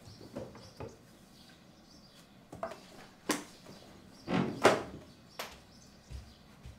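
A few short, sharp knocks and clatters of things handled on a tabletop, the loudest about two-thirds of the way through, as someone gets up from a chair; then a few soft, dull thumps of footsteps.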